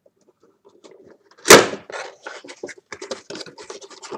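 A single loud knock about one and a half seconds in, then a quick run of small clicks and crackles as a cardboard figure box is handled and opened.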